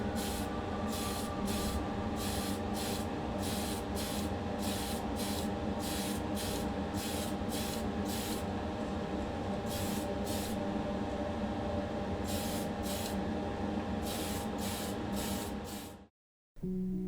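Paint spraying in many short hissing bursts over a steady electric motor hum, as a colour coat goes onto a die-cast car body. The sound cuts off abruptly near the end.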